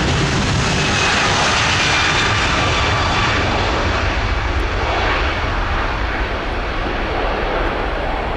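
Four-engine Airbus A340's jet engines at takeoff thrust during the takeoff roll: steady, loud jet noise that slowly fades in the second half as the aircraft moves away down the runway.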